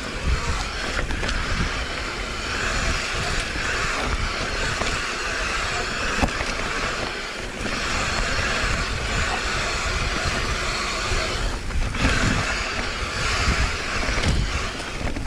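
Mountain bike riding fast down a rough forest trail: continuous rattling and rumbling of tyres and bike over the ground, with a steady high buzz that breaks off briefly twice.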